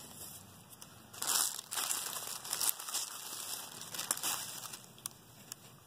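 Tissue paper and gift wrapping crinkling in several short bursts as gift items are handled and moved about.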